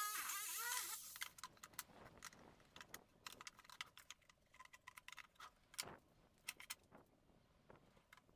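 Electric jigsaw cutting MDF, its motor whine dipping with the strokes, stopping about a second in. After that, scattered light clicks and taps of MDF panels being handled and set in place.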